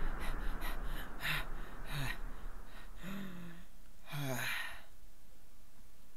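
A man's voice gasping and panting, four breathy gasps over a steady hiss, the last two longer, about three and four seconds in.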